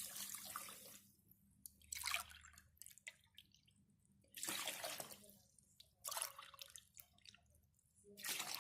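Water poured from a glass onto sugar in a pot for a syrup, in about four short pours a second or two apart.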